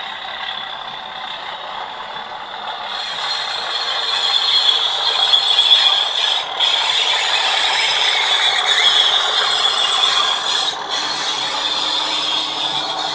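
A model Class 37 diesel locomotive's Hornby HM7000 sound decoder playing the engine sound through a sugarcube speaker in a large enclosure, together with the mechanical clatter of the model and its container wagons running on the track. It grows louder about three seconds in as the train comes close.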